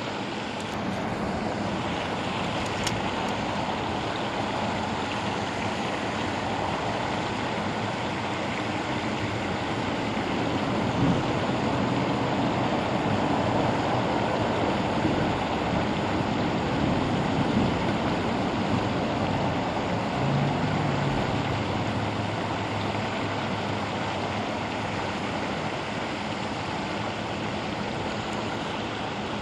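Water pouring over a spillway into a pool below, a steady rushing noise.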